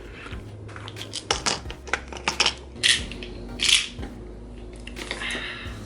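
Small plastic items being handled: a string of clicks and taps, with louder crinkling rustles about three seconds in and again just before four seconds.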